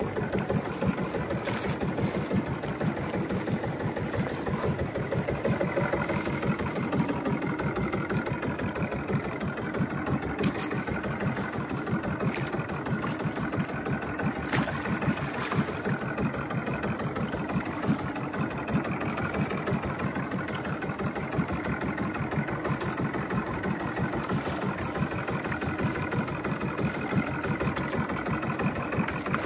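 Boat engine running steadily at a constant speed, a fast, even low pulsing, with the hiss of water and wind over it.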